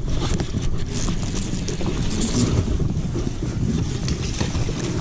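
Wind buffeting the microphone on an open boat, a heavy steady rumble, with a few faint ticks and taps over it.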